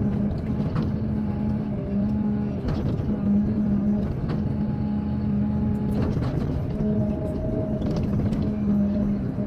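Heavy earthmoving machinery's diesel engine running steadily under load, its hum swelling and easing every second or two, with scattered clanks.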